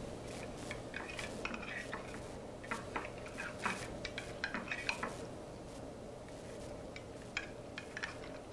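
Metal pie server clinking and scraping against a glass pie dish while cutting a slice of baked custard pie: a quick run of light clicks and scrapes, then a quieter stretch with a couple of single taps near the end.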